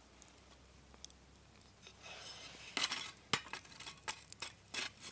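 Sharp pops and clinks from a small metal wood-burning stove holding glowing embers after a burn. A soft hiss rises about two seconds in, followed by a cluster of irregular cracks.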